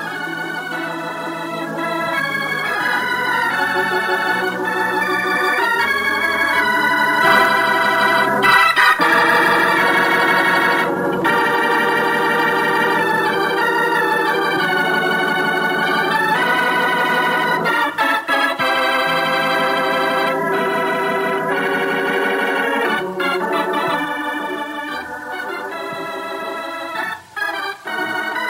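Organ music playing held chords under a moving melody, swelling louder a few seconds in and easing off near the end.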